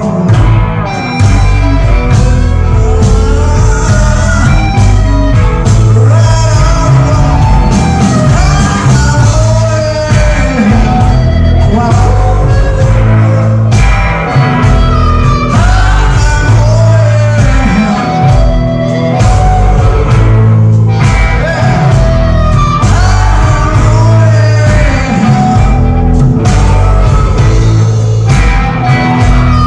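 A live rock band playing loud in a hall, heard from within the audience: driving drums, electric guitar and bass under a lead vocal sung and shouted.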